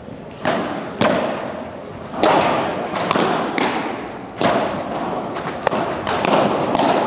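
Padel rally: the ball struck back and forth with padel rackets and bouncing on the court, a string of sharp pocks about every half second to a second, each ringing on in the hall.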